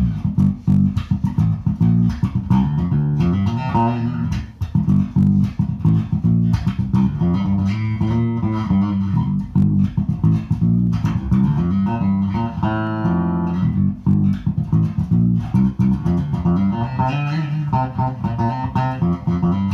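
Harley Benton MM 85-A SB Deluxe electric bass played solo in a busy, continuous run of plucked notes, with the pickup selector on position 4: the front coil of the bridge pickup alone.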